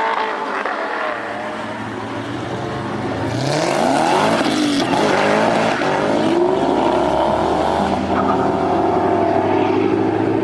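Car engines revving, several at once, their pitch rising and falling, with a short stretch of hiss about four seconds in.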